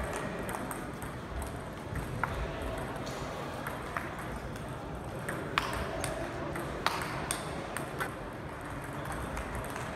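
Table tennis ball striking rackets and the table during a rally: sharp, short clicks at irregular intervals over steady hall noise.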